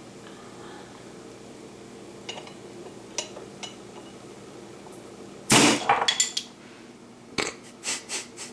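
Metal bottle opener clicking against the crown cap of a homebrew beer bottle, then about five and a half seconds in the cap lets go with a loud, sudden pop and spray of foam, startling enough to be taken for the bottle exploding. A few quick sputters and splats follow as the gusher foams out. The beer is a homebrew milk stout, gushing because it is over-carbonated from a suspected wild-yeast infection.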